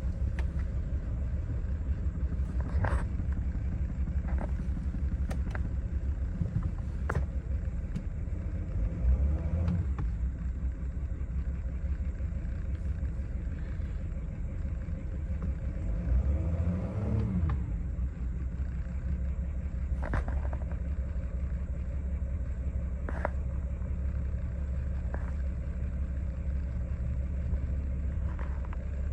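2020 Mercedes-Benz Sprinter van engine idling roughly just after start: an uneven low rumble whose speed rises and falls briefly twice, with a few sharp clicks over it.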